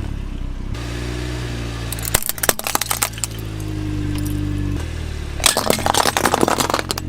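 Steady low motor hum from a toy excavator, changing pitch abruptly a few times, with two spells of hard plastic clattering and rattling as toy cars are knocked and dragged, the first about two seconds in and the second near the end.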